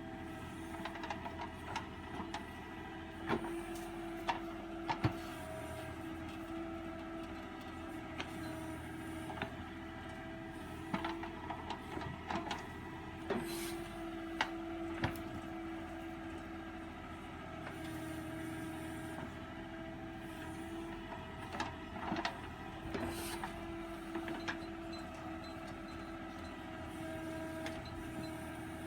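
Diesel engine of a backhoe loader running steadily while it works, with a hum that swells and fades and scattered sharp metallic knocks.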